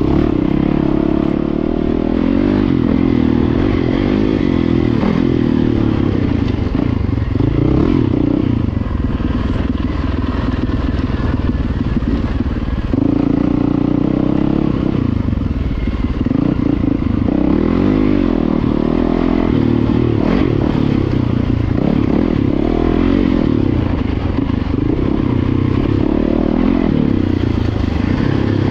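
Dirt bike engine being ridden on a trail, its revs rising and falling continually, with some rattling from the bike.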